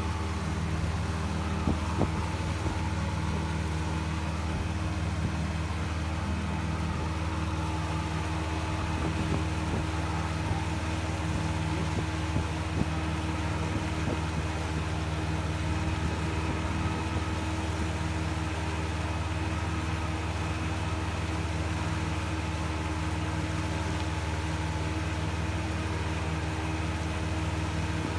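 Pontoon boat's engine running steadily under way, a low even drone with a few light knocks.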